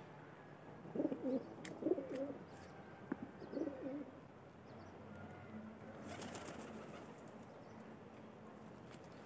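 Domestic pigeons cooing: three short, low coos within the first four seconds, fainter after.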